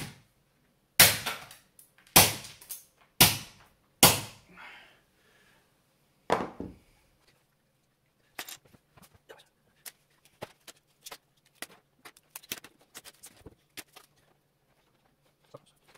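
Five hard hammer blows on the glued plastic casing of a CRT degaussing wand, cracking it open, the last coming a couple of seconds after the first four. Then a long run of faint, light clicks and rattles as the broken plastic pieces are pulled away and handled.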